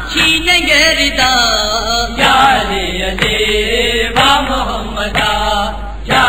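Male voice chanting an Urdu noha, a Shia mourning lament, in long gliding melodic lines, with a faint beat about once a second underneath.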